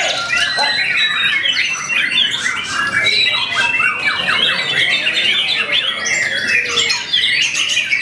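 Young white-rumped shama (murai batu) singing a fast, unbroken stream of short, quickly rising and falling notes.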